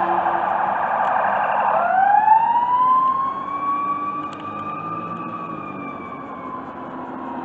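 Ambulance siren sounding as the ambulance pulls away: a wail rises sharply about two seconds in, then slowly falls in pitch and fades with distance.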